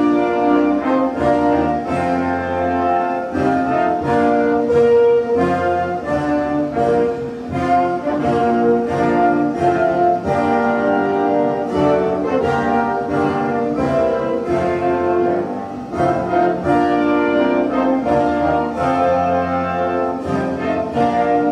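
Orchestral music with brass and strings, a steady pulse of chords.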